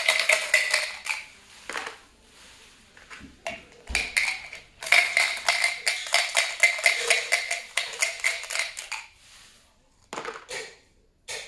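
Yahtzee dice rattling fast inside a plastic dice cup as it is shaken, in two spells: the first stops about a second in, the second lasts about four seconds. Near the end the dice are tipped out and clatter briefly into a cardboard box.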